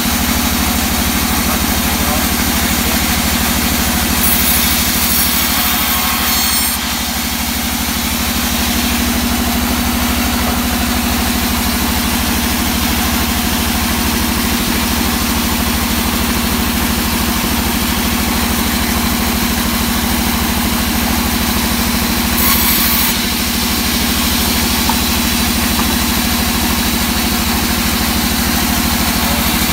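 Large vertical band saw running steadily with a constant motor hum. Twice, briefly, a brighter hiss rises over the hum as the blade cuts into old teak planks, about four to seven seconds in and again around twenty-two seconds.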